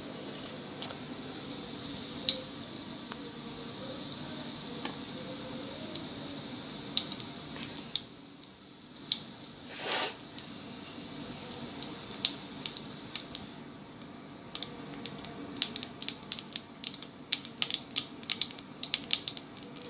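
Chana dal, urad dal and cumin frying in hot oil in a kadai: a steady sizzle for the first half, with a brief louder surge about halfway through. In the second half the sizzle drops and gives way to many sharp pops and crackles as the oil sputters and the dals turn golden.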